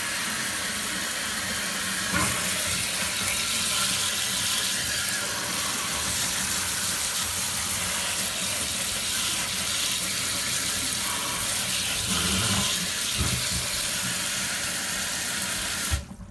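A steady jet of water spraying hard onto a computer circuit board to wash off grime, a continuous hiss that cuts off suddenly near the end.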